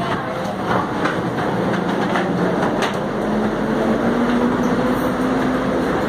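Red TransMilenio articulated bus at the station platform, its engine running as a steady drone. A low engine note rises slightly from about halfway through. Short clicks and clatter sound over it.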